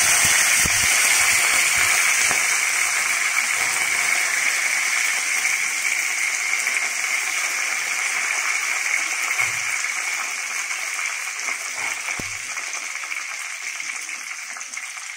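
Fresh curry leaves sizzling in hot oil in the tempering for a curry. The sizzle is loud at first and slowly dies down.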